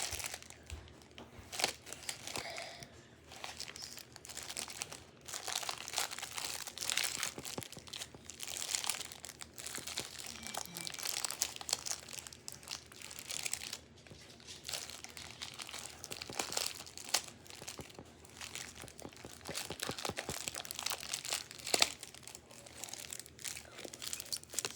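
Plastic crinkling and rustling in irregular bursts, with a few crackles, as a homemade squishy is put together by hand.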